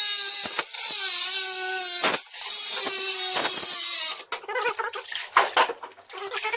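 A small electric motor, like a power drill's, whining steadily with its pitch sagging slightly, among scattered clicks. From about four seconds in it runs choppy and uneven.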